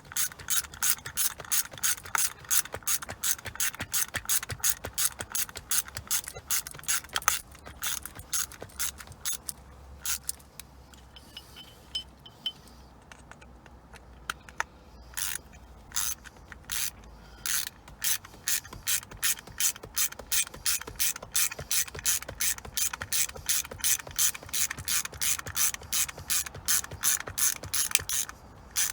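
Hand ratchet clicking steadily, about four clicks a second, as it drives in a screw. It goes sparse for a few seconds around the middle, then the steady ratcheting resumes.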